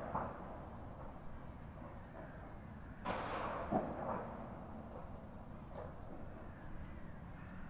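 Outdoor ambience with a faint steady background and a sudden noisy rush about three seconds in that fades away over about a second.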